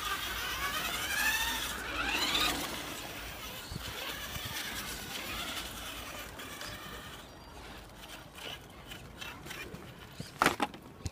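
Electric motor of a radio-controlled monster truck whining as it drives, its pitch rising and falling with the throttle over a rough rolling noise from the tyres, fading after about seven seconds. A few sharp knocks near the end.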